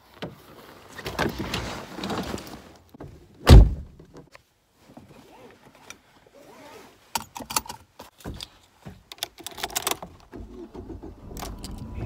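Handling noises: rustling, then one loud, deep thud about three and a half seconds in, followed by a run of sharp clicks and rattles.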